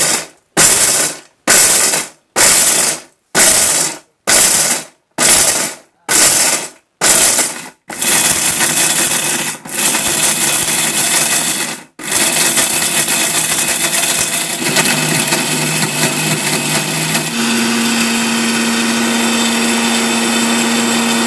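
750-watt Sahara mixer grinder grinding dried turmeric into powder. For the first eight seconds it is pulsed in about ten short bursts, then it runs continuously, cut briefly twice. A steady whine settles into the motor sound in the last few seconds.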